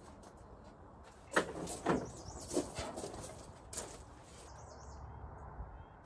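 A few short knocks and clatters as the steel infeed hopper of a Woodland Mills WC68 wood chipper is handled by hand, over faint background noise.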